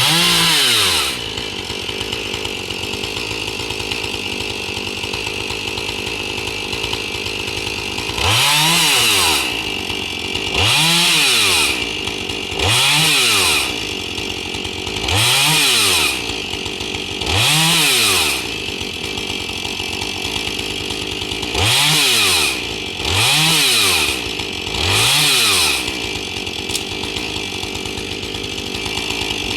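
Two-stroke chainsaw idling, revved up to high speed and back about nine times, each rev lasting about a second.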